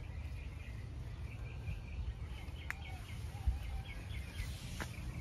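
Outdoor garden ambience: faint, repeated short bird chirps over a low, steady background rumble, with two sharp clicks, one a little before halfway and one near the end.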